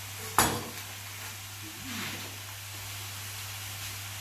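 Minced beef frying in a wok with a faint steady sizzle over a low hum, and one sharp knock about half a second in.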